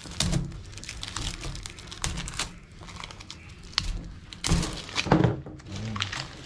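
Plastic packaging crinkling and coils of bonsai wire knocking as they are handled and set down, in irregular rustles and clicks, with a few louder thunks about five seconds in.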